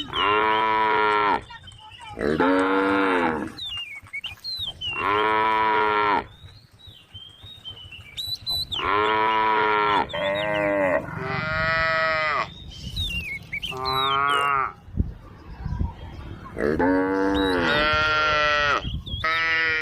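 Cows mooing repeatedly: about nine long, pitched moos in a row, a second or so each, with short pauses between them.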